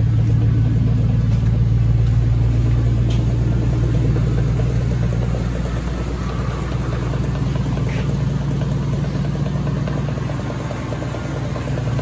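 2002 Chevy Silverado 1500 engine running with a steady low hum, and a few faint ticks scattered over it. The truck's drivetrain has a clicking noise that is put down to a bad universal joint.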